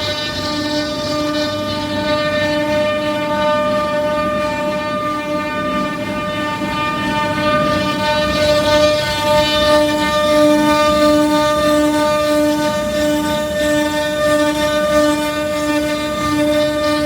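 CNC router spindle running at a steady pitch while the bit carves wood, a continuous whine with a rough cutting noise underneath that swells and fades as the cut goes on.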